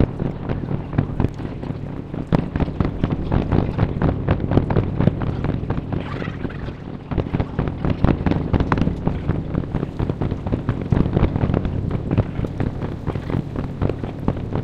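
Fireworks display: a rapid, continuous series of bangs and crackles, over a steady low hum.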